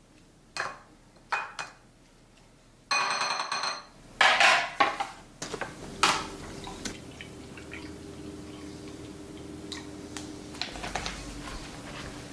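Kitchen clatter: dishes and utensils knocking and clinking, loudest a few seconds in. After that, a steady low hum runs under a few light clicks.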